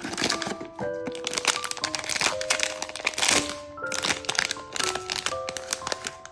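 Silver foil blind-box bag crinkling and crackling as it is handled, torn open and the figure pulled out, over background music with held notes.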